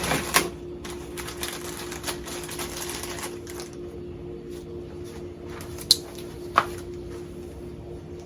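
Small clicks and rustling as the new starter rope and handle for an outboard's rewind starter are handled, with a few sharper clicks, over a steady background hum.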